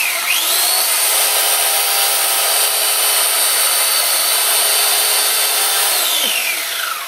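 Corded electric chainsaw running with a steady whine as its chain cuts through a roast turkey. The pitch dips briefly just after the start as the chain bites, then falls away near the end as the motor winds down.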